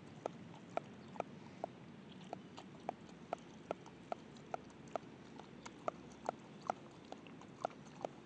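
Chow chow dog lapping water in quick, regular laps, about two a second.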